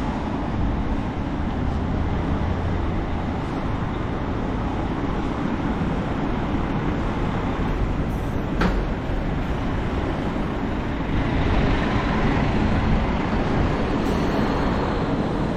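Steady traffic noise of a city street, with vehicles running by. A single sharp click comes a little past halfway, and the noise grows louder about two-thirds through.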